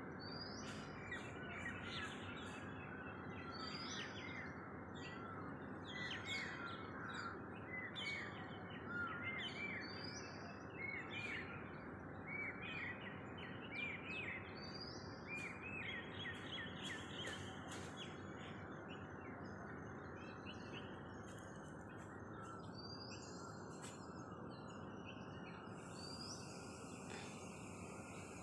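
Birds chirping and calling over a steady background hiss, with one higher call repeating every couple of seconds; the chirping thins out in the last third.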